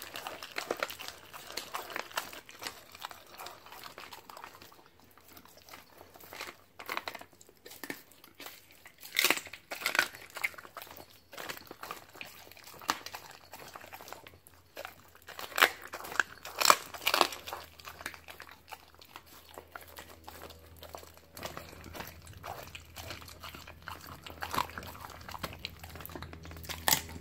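Siberian husky chewing a raw chicken leg quarter: irregular wet bites and crunching of bone, loudest about nine and sixteen seconds in. The plastic kibble bag under its paws crinkles as it works the meat.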